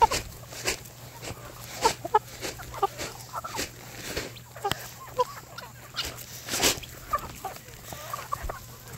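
A flock of chickens clucking all around, many short overlapping clucks throughout, with scattered sharp thumps louder than the birds.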